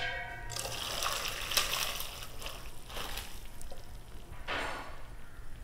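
Hot cooking water and boiled noodles poured from a pot into a plastic strainer, the water splashing and draining through into a steel pot below. The pour starts about half a second in, with a stronger gush near the end.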